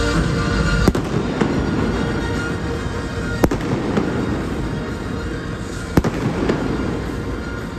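Stadium fireworks bursting with music playing: three sharp bangs about two and a half seconds apart, each followed by a fainter bang about half a second later.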